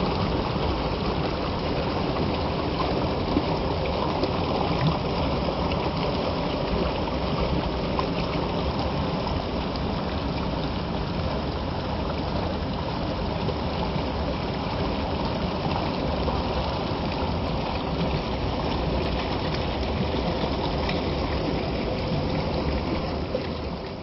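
Shallow stream rushing and splashing over rock ledges and small cascades at the top of a waterfall, a steady, unbroken rush that fades out near the end.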